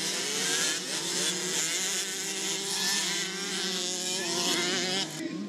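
Several motocross dirt bikes racing, their engines revving together with overlapping pitches that rise and fall.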